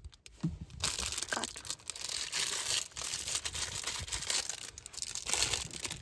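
Dense crinkling and rustling noise, close by, starting about a second in and running on steadily.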